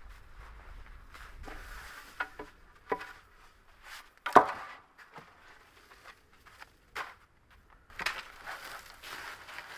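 Irregular knocks and crunching handling noises, with one sharp knock about four and a half seconds in and a busier patch of crunching near the end.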